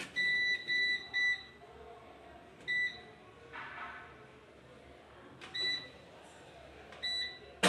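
Washing machine control panel beeping: three quick high beeps, then single beeps about every two and a half seconds. A sharp click comes right at the end.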